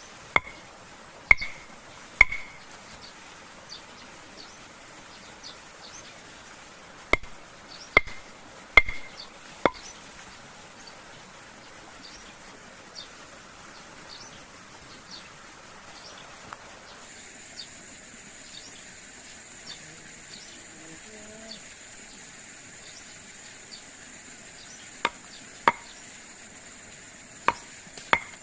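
Chopping strikes into wood, sharp blows with a short ringing edge, in bunches of two to four. A few come early, more follow around the 7–10 s mark and again near the end, with faint light taps between. A steady high insect drone starts partway through.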